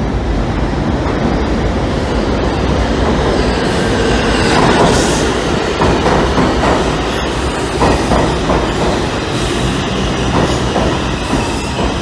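Bombardier R142 subway train running into an underground station: a steady rumble that swells to its loudest about five seconds in, then a quick run of knocks as the cars' wheels pass over the rail joints.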